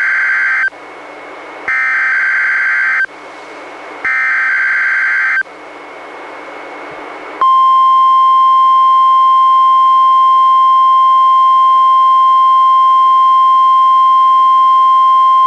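NOAA Weather Radio Required Weekly Test: the EAS/SAME header plays as buzzy digital data bursts with radio hiss between them, the end of one burst and then two full ones. About seven seconds in, the steady 1050 Hz NOAA Weather Radio warning alarm tone starts and holds, louder than the bursts.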